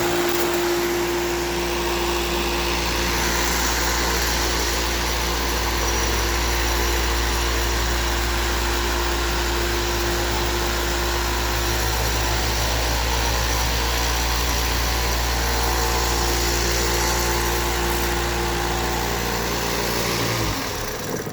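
Electric floor sander running steadily with a constant motor hum as it sands deck boards, then switched off and winding down about twenty seconds in.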